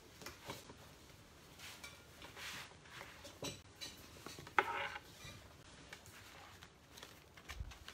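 Scattered light knocks, shuffling and clothing rustle as one person gets up from a chair and another sits down in it, with one sharper knock about halfway through and a soft low thud near the end.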